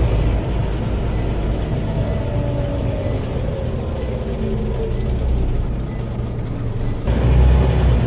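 Scania Omnicity bus running, a steady low diesel rumble with a faint whine falling in pitch in the middle. The rumble turns suddenly louder about seven seconds in.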